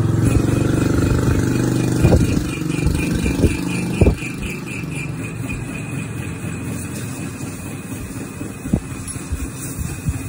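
Metal lathe running, a steady machine hum with several pitched tones. It is loudest for the first few seconds, then settles lower. A few sharp metallic knocks stand out.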